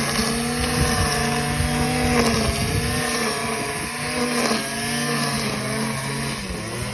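Small lawn-equipment engine running steadily, its pitch dipping slightly a few times.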